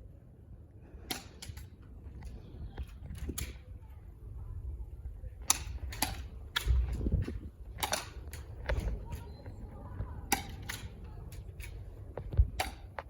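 Airsoft guns firing: a string of sharp snapping shots at irregular intervals, some in quick pairs, over low rumbling background noise.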